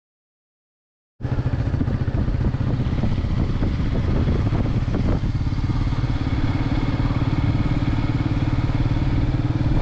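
Silent for about the first second, then a motorcycle engine cuts in suddenly and keeps running steadily, heard from the rider's seat as the bike rides along.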